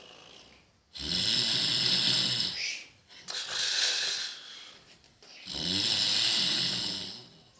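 A man snoring loudly in his sleep: two long snores with a low buzzing rattle, one about a second in and one about five and a half seconds in, with a breathy out-breath between them.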